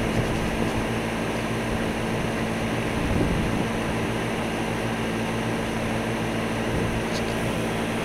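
American Standard heat pump outdoor unit running in heat mode: a steady hum under the even rush of air from its spinning three-blade fan.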